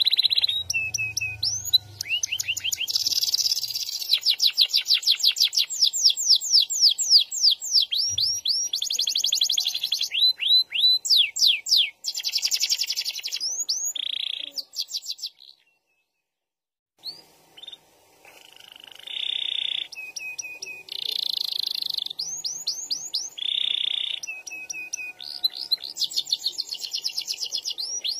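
Domestic canary singing a long, loud song of rolls and trills: runs of fast repeated rising whistles alternating with buzzy, rattling phrases. The song breaks off for about two seconds a little past the middle, then starts again.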